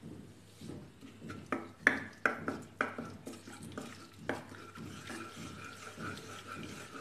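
A spatula scraping and knocking against a metal kadai while stirring turmeric into hot oil. A quick run of sharp clacks and scrapes comes in the first half.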